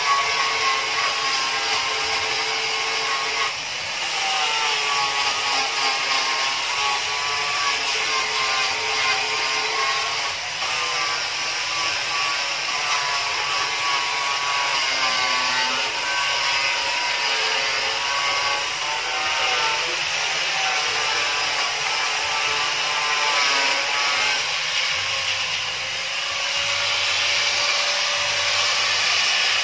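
Handheld electric angle grinder running continuously while sanding the wooden planks of a small boat hull. Its motor pitch wavers up and down as the disc is pressed into and moved along the wood.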